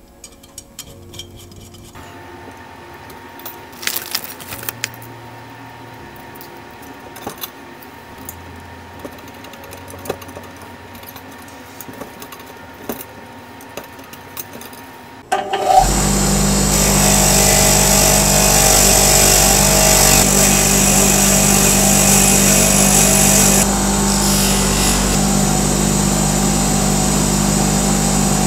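Light scattered clicks of hands working on a bicycle wheel's spokes and hub. About halfway through, a Topex bench grinder starts up and runs loudly and steadily, a constant hum with a hiss on top that eases a little near the end.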